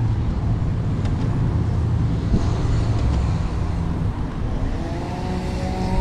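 Road traffic and low wind rumble heard while riding along a street. Near the end a motor's whine rises in pitch and then holds steady.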